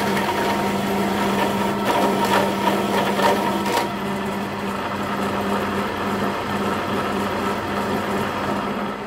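Vertical milling machine running a hole saw through metal plate: a steady motor hum with the grinding rasp of the saw cutting. Several short squirts of cutting fluid from a spray bottle come in the first few seconds.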